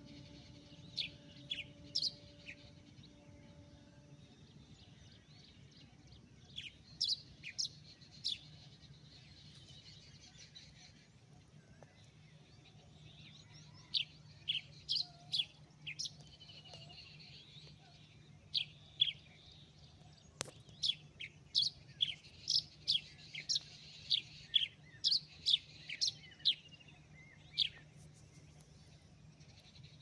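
Small birds chirping with short, sharp calls. The calls come singly at first and in quick runs later on. A faint steady low hum lies underneath.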